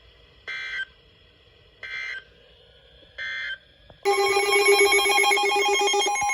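Emergency Alert System SAME header: three short, identical bursts of digital data tones about a second and a half apart. About four seconds in, the loud, steady EAS attention tone starts, a harsh many-toned sound that signals an emergency alert is about to be read.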